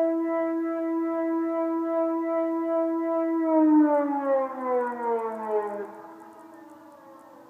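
Civil defence siren sounding the steady all-clear tone, which about three and a half seconds in falls in pitch as the siren winds down and dies away by about six seconds in. A fainter steady siren tone carries on behind it.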